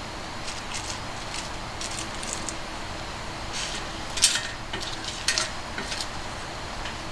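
Long wooden cooking chopsticks tapping and clicking against a black enamel plate as pieces of tempura are set down on it: scattered light clicks, with two sharper taps about four and five seconds in.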